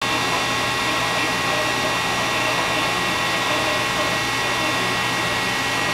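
Steady whirring hum of running machinery, holding one even level, with a low hum and a few constant high-pitched tones.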